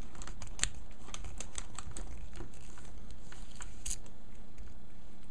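Scattered light clicks and ticks of a mini Phillips screwdriver turning a tiny screw in a plastic action figure's chest, over a steady low hum.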